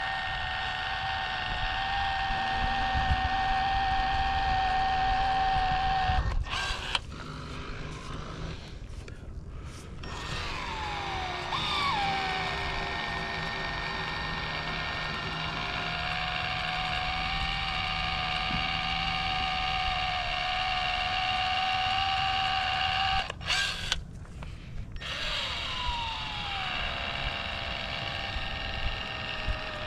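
Small electric power tool motor running with a steady whine. Twice it cuts out for a few seconds, then comes back, its pitch sliding as it gets back up to speed.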